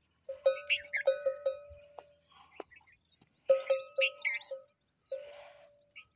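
A bell hung on a walking camel clanking in uneven runs of strikes, each ringing on one steady note. The strikes come in two bouts with a pause of about two seconds between them.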